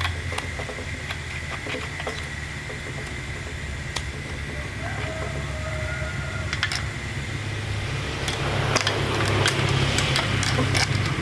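A motor running steadily with a low hum and scattered clicks and rattles, getting louder and rougher about eight seconds in.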